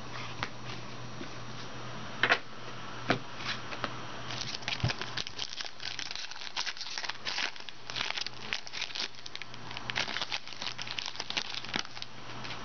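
Wrapper of a trading card pack crinkling and tearing as it is opened by hand: a few scattered crackles at first, then dense crinkling from about four seconds in.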